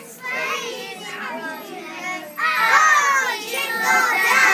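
A group of preschool children singing together in high, overlapping voices, loud and ragged, getting louder about halfway in.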